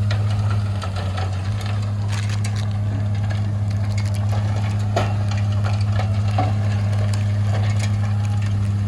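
A heavy machine's engine running steadily at a low pitch, with scattered knocks and crunching clatter over it.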